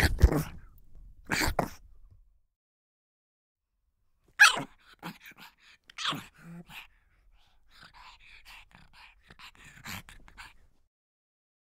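Young puppy barking in short, high yaps. There are two loud barks at the start, then after a silent gap a string of barks from about four seconds in, then a quicker series of fainter yips.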